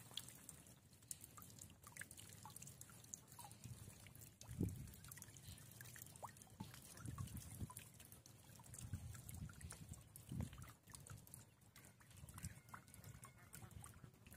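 Faint dripping and trickling of water draining through the fine mesh of a large lift net as it is raised out of a pond, with a few soft low thumps.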